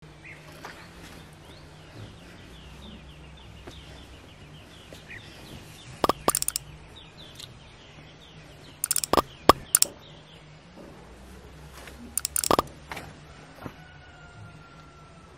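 Outdoor ambience of small birds chirping over a low steady hum, broken three times by loud, short clusters of knocks and rustles from handling noise as a cotton wrapper cloth is unfolded and held up.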